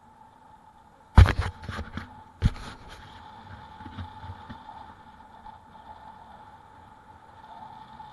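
Sharp knocks and rattling as the e-bike and its trailer jolt over bumps: a loud run of several knocks about a second in, and a shorter run a second and a half later. A steady faint whine and road noise run underneath.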